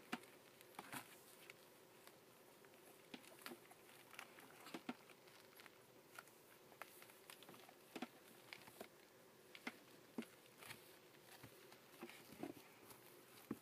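Faint, irregular ticks and rustles of a blue merle rough collie puppy's paws and claws scrabbling on paper puppy pads.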